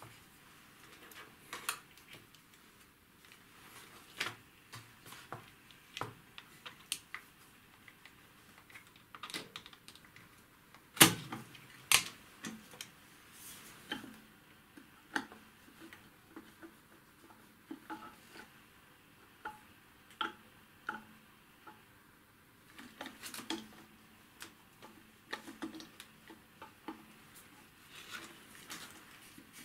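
Scattered clicks and knocks of a Smiths sensitive altimeter's metal case being handled and worked at by hand as its rear housing is eased off the cylindrical body. The loudest is a sharp knock about eleven seconds in, with a cluster of smaller clicks a little past twenty seconds.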